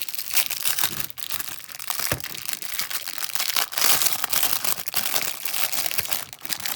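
Mail packaging being handled and torn open: continuous crinkling and crackling with many small sharp crackles throughout.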